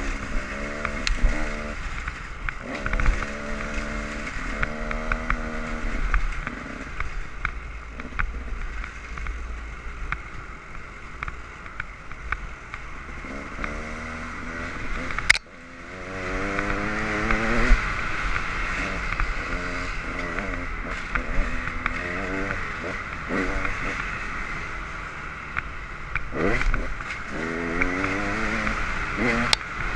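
Dirt bike engines revving up and down on the trail as the riders work the throttle and shift, with a steady rush of wind and engine noise underneath. There is a sharp click with a momentary drop about halfway through.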